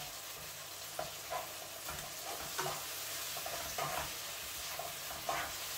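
Peppers and tomatoes sizzling in a frying pan while being stirred, the spatula scraping and tapping against the pan every half second or so.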